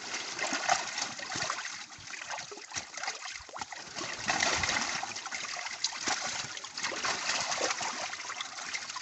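Water splashing and trickling in a tilapia hatchery tank as female tilapia are handled over a hand net, water pouring from a held fish's mouth as its eggs are flushed out into the net. The splashes come irregularly throughout.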